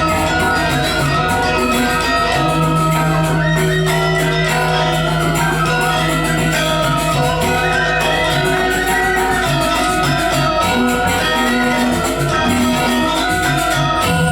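Balinese gamelan playing dance accompaniment: bronze metallophones struck in a fast, dense pattern of ringing notes over a low held tone.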